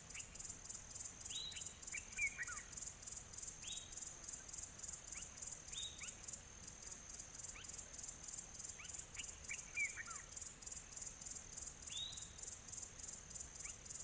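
Outdoor nature ambience: a steady, evenly pulsing high-pitched insect chirring, with a few short bird calls over it, several quick downward-sweeping notes and a couple of brief chirps.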